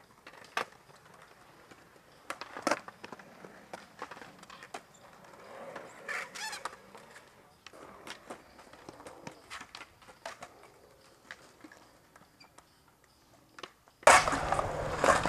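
Skateboards on concrete: scattered clacks and knocks of boards hitting the ground and ledges, with a short shout about six seconds in. About fourteen seconds in the sound jumps much louder, with rapid clacking over a low hum.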